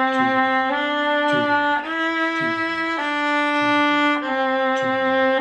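Viola playing a slow line of held, bowed notes, the pitch changing about once a second.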